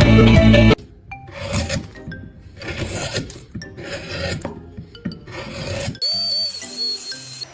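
Music, then a hand tool rasping on wood in repeated back-and-forth strokes, about two a second, for around five seconds. Music comes back near the end.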